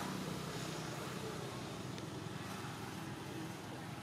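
Steady background noise with a low rumble, no distinct sound event.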